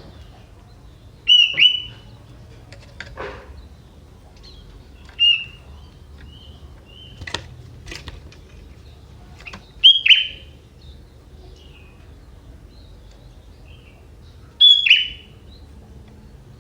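Young wild sooty-headed bulbul (kutilang) calling in short, sharp, falling chirps: four loud ones a few seconds apart, with softer notes between them.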